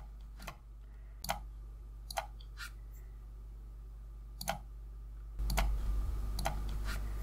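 A recording's faint background: a steady low electrical hum and a light static hiss, with a few sharp clicks. About five seconds in, the static hiss gets clearly louder as the unprocessed version, without noise reduction, plays.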